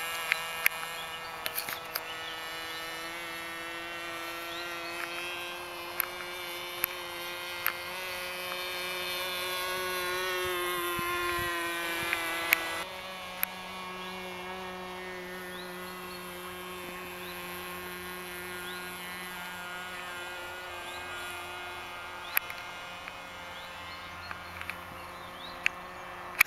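Radio-controlled model airplane's motor and propeller whining steadily in flight. The pitch creeps up, then shifts abruptly about halfway through, and a few sharp clicks come through.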